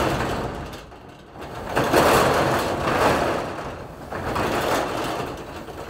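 Steel roll-up shop door running down its guides, its corrugated metal curtain rattling as it uncoils; the rattle is loudest from about two seconds in, as the door comes down to shut.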